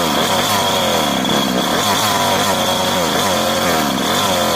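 Two-stroke engine of a large-scale gas-powered RC car running hard, its pitch rising and falling again and again as the revs change.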